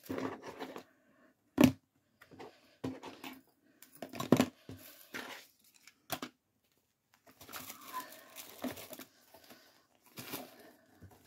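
Tissue paper rustling as items are handled and packed back into a gift box, with a few sharp knocks of objects being set down, the loudest about one and a half and four seconds in.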